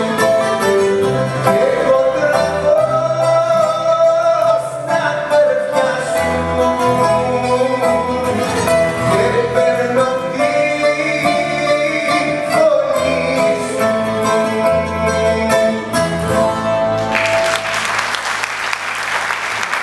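A male voice sings a song live with a small acoustic band of plucked lute, upright bass and keyboard. The song ends near the end, and audience applause breaks out straight after.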